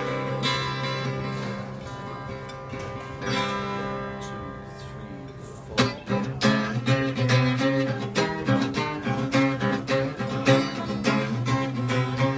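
Guitar music: slow, held strummed chords for about the first six seconds, then a louder, quicker picked rhythm.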